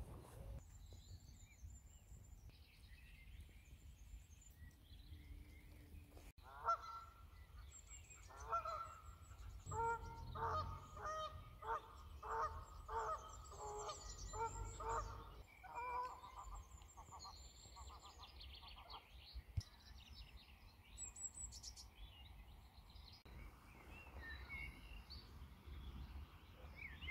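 A lone Canada goose honking over and over, a long series of calls from about a quarter of the way in until past the middle; it seems to have lost the rest of its group. Small birds sing faintly throughout.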